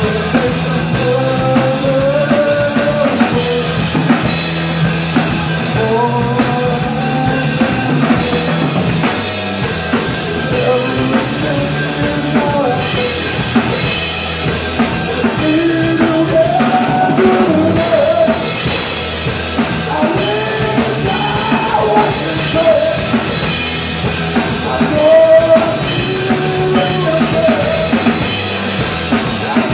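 Live band playing loudly: two electric guitars and a drum kit, with a melodic line wandering over a steady drumbeat.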